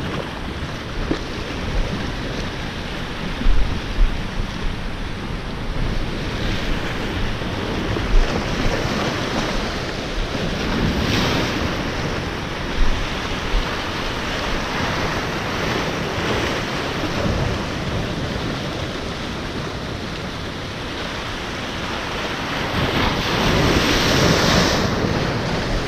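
Ocean surf washing over shoreline rocks, surging louder as waves break a little before halfway and again near the end. Wind buffets the microphone with a few low bumps in the first half.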